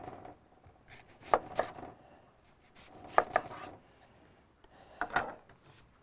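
Kitchen knife slicing a white onion into thick rounds on a wooden cutting board: short sharp knocks of the blade reaching the board, in pairs about every two seconds.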